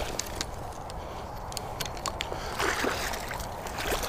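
A small hooked pike thrashing at the surface beside the bank, splashing and sloshing the water, with stronger splashes about two-thirds of the way in and again near the end.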